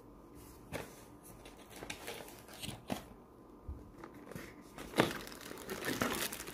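Light handling of a small cardboard accessory box, with scattered soft taps and knocks. A sharper knock about five seconds in, followed by the crinkling of a plastic bag as the wrapped laptop charger is drawn out of the box.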